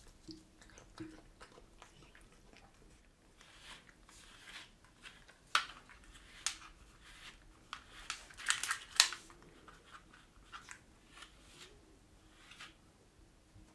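Scratching and rustling of long fake nails and a brush working through a Maine Coon's thick coat, with a cluster of sharp clicks in the middle.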